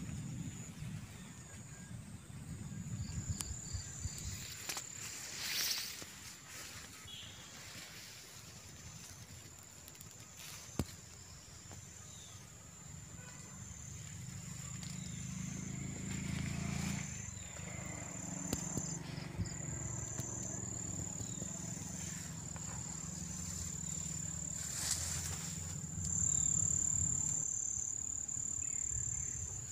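Insects chirring in one steady, unbroken high-pitched drone. A low hum joins about halfway through, with a couple of short rustles.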